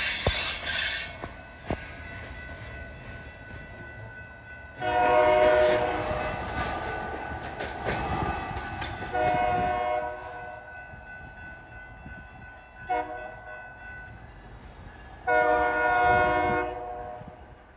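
Freight train's diesel locomotive horn sounding the grade-crossing signal: two long blasts, a short one and a final long one. Under it runs the rumble of the rolling freight cars, loud with sharp clanks at the very start as the tank cars pass.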